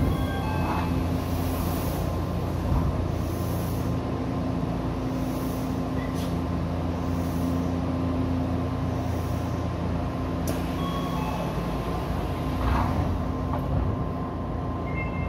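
Odakyu 2000 series electric commuter train standing at a station, heard from the cab: a steady electrical hum of its onboard equipment, with a few short electronic chime tones and a brief burst of noise near the end.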